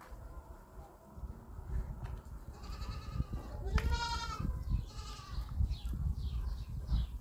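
Goats bleating: one long, quavering bleat about three to four seconds in and a shorter one just after. Low thuds and rustling run underneath as the goats move and feed.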